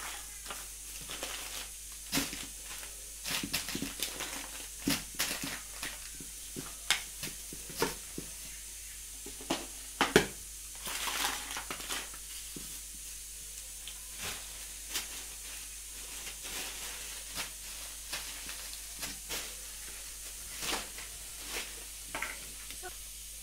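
Plastic grocery packets rustling and crinkling as they are handled and packed into a large stainless steel drum, with scattered taps and knocks throughout; the loudest knock comes about ten seconds in.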